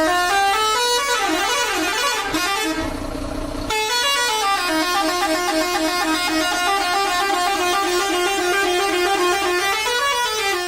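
Truck horn playing a tune of rapidly changing notes, with sliding notes about a second in and again near the end. Around three seconds in, a rushing noise sounds beneath it for under a second.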